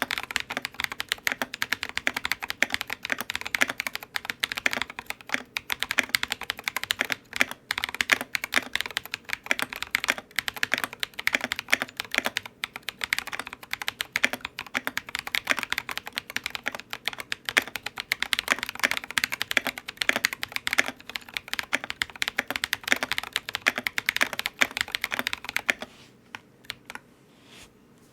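Continuous fast typing on a Monstargear XO K80 mechanical keyboard fitted with lubed Drop Invyr Holy Panda tactile switches and Drop MT3 Camillo keycaps: a steady stream of keystroke clacks. The typing stops about two seconds before the end.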